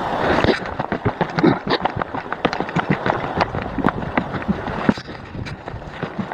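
A steady rushing noise that stops about half a second in, then a run of many irregular clicks and knocks.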